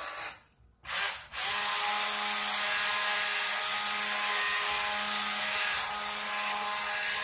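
Electric stick blender running in a crock pot of hot-process soap batter, mixing the lye water into the oils. It cuts off briefly just after the start, gives a short burst about a second in, then runs steadily with a constant motor whine.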